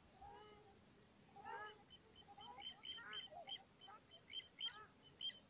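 Faint calls of birds on a lake: a few bending calls, then from about two seconds in a quick run of short high peeps, several a second.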